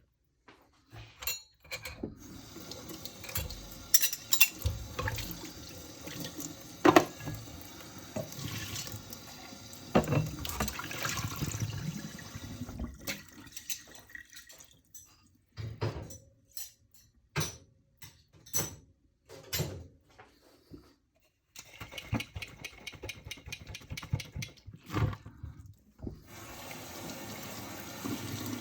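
Dishes being washed by hand at a kitchen sink: tap water runs for about ten seconds, stops, and runs again later for a few seconds. Sharp clinks and knocks of dishes are heard throughout, most plainly while the water is off.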